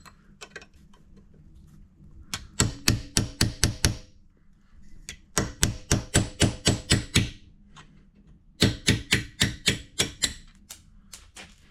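Quick metal-on-metal tapping on a punch clamped in a vise, knocking the end cap off a steel engine pushrod. The taps come in three runs of about five a second, with short pauses between.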